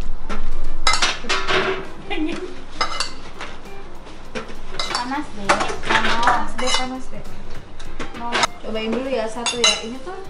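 A metal spoon and a metal baking tray clinking and clattering in a run of sharp, irregular strikes, several of them loud, as potatoes are basted and kitchenware is handled.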